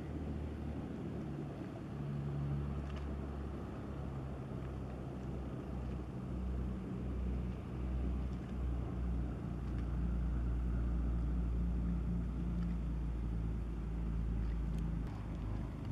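Low, steady drone of an inland motor cargo ship's diesel engine as the vessel passes, growing a little louder about ten seconds in.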